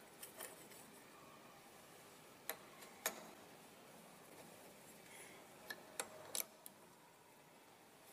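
A handful of sharp metal clicks and taps, spaced irregularly over a quiet background, from a lathe's four-way tool post being handled as a cutting tool is set in it and its clamping bolts are worked with a key. The loudest taps come about three seconds in and again about six seconds in.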